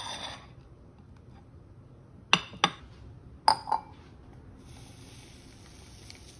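Glassware being handled on a kitchen counter: a short scrape at the start, then two pairs of sharp glass clinks about a second apart as a glass dessert bowl and mug are set down. Near the end a soft steady hiss of powdered cappuccino mix pouring from a sachet into a glass.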